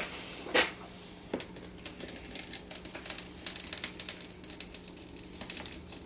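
Thick rust-converting primer poured from a plastic jug into a clear plastic tub, a run of fine crackling splats and glugs, with a sharp knock about half a second in and another near a second and a half. A steady low hum runs underneath.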